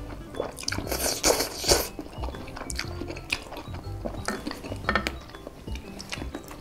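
Instant noodles being slurped loudly off forks, strongest about a second in, then a few sharp clinks of metal forks against a glass dish. Background music with a steady bass line runs underneath.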